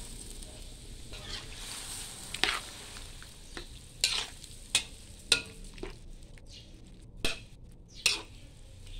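Metal spatula stirring and scraping against a wide metal wok, with about six sharp clinks and scrapes at irregular moments, over the steady low sizzle of pork simmering in coconut milk.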